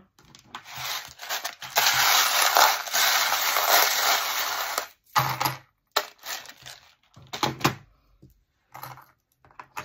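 A heap of small metal charms jangling and rattling as they are tipped and shaken into a tray, followed by a few separate clicks as single charms settle.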